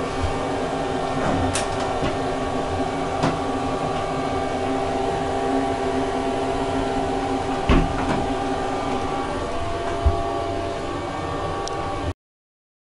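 Steady running hum of a vehicle heard from inside, several tones held level, with a few sharp knocks; the sound cuts off suddenly about twelve seconds in.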